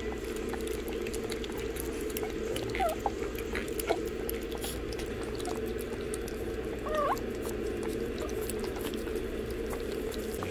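Shih Tzu puppies lapping and smacking at mushy food in a bowl, a run of small wet clicks, with a few short high puppy squeaks about three and seven seconds in.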